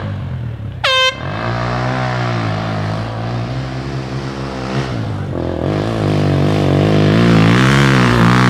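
A short air horn blast about a second in. Then a dirt bike engine revs hard as it climbs the hill, its pitch rising and falling with the throttle and growing louder in the second half as the bike nears.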